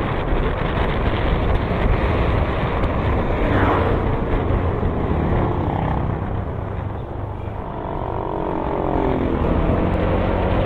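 A vehicle travelling along a road: a steady rush of engine, tyre and wind noise, with a pitched engine note coming through in the last few seconds.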